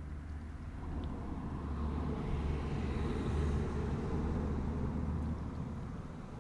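A road vehicle passing by: a low rumble that builds to a peak about halfway through and then fades away.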